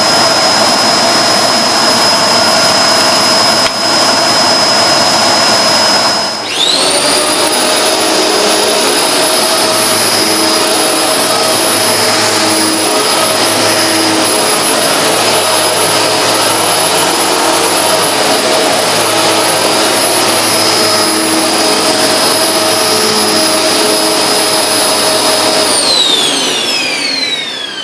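Hoover Globe bagless vacuum cleaner's motor running with a loud, high-pitched whine. About six seconds in the whine dips briefly and climbs back to a slightly higher steady pitch. Near the end the pitch falls steadily as the motor is switched off and spins down.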